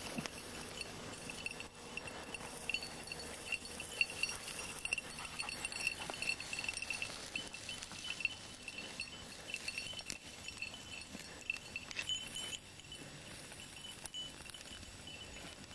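A hunting dog's collar bell jingling in quick, uneven dings as the dog moves through reeds and brush. The pitch rises slightly about twelve seconds in.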